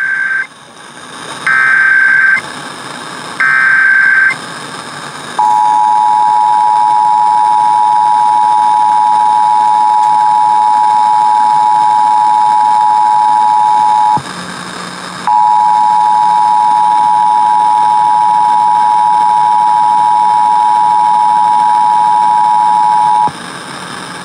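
Emergency Alert System required monthly test: three short buzzing bursts of SAME header data, then the EAS two-tone attention signal (853 and 960 Hz together) held for about nine seconds. After a one-second break the two-tone signal sounds again for about eight seconds, with a low hum under it.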